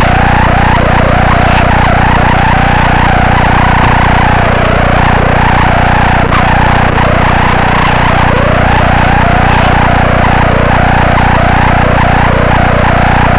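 Loud, steady electrical buzz with a warbling whine that rises over and over, picked up by a model plane's onboard camera. It runs on unchanged when the plane tumbles, so it is the camera's electrical interference rather than the motor.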